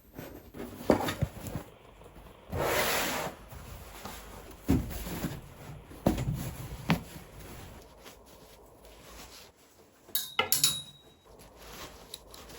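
Household items being handled and set down: a series of knocks and clacks, a brief rustle or scrape about three seconds in, and a quick cluster of clicks with a short metallic ring near the end.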